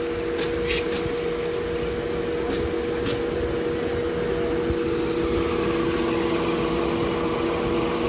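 Car engine idling with a steady two-note hum, and a couple of brief high hisses, one just under a second in and another about three seconds in.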